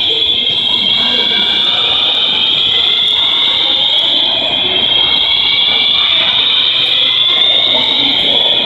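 Shopping mall fire alarm system sounding continuously: a loud, high-pitched, siren-like wail whose tones glide slowly upward without a break.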